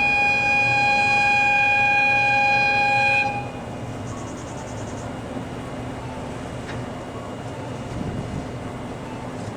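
Diesel locomotive's whistle sounding one long steady blast that cuts off about three seconds in, followed by the low steady running of the locomotive.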